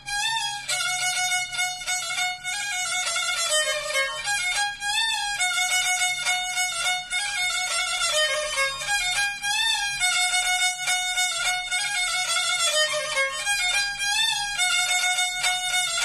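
Black Sea kemençe, a small three-stringed bowed fiddle, played solo: a quick, lively Black Sea folk melody with short bow strokes and ornamental turns, one phrase coming round again about every four and a half seconds.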